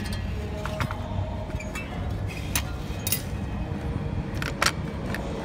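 Scattered sharp metal clicks and clinks as the steel jaw of a Lift-o-matic drum picker head is worked back in past its pin, over a steady low hum.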